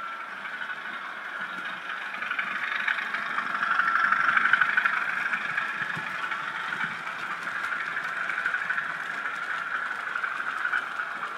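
Sound-fitted Bachmann Class 37 model diesel locomotive passing with its train: the decoder's engine sound through the model's small speaker, mixed with wheels running on the rails. It is loudest about four to five seconds in as the train passes closest, then eases off.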